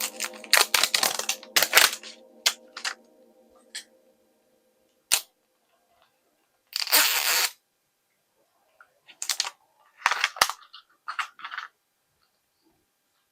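Sharp plastic clicks and snaps from a Mini Brands toy capsule being handled and opened, with a short crinkling rustle about seven seconds in.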